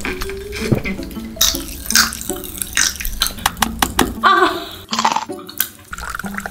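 Biting, crunching and chewing a hollow chocolate high-heel shoe, with wet mouth sounds and many short sharp cracks, over light background music.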